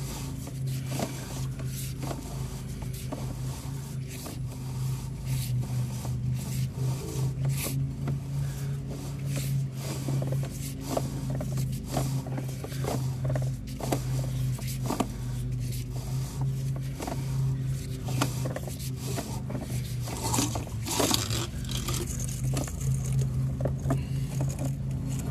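Sewer inspection camera's push cable being pulled back through a drain line, with irregular scraping and clicking, over a steady low hum.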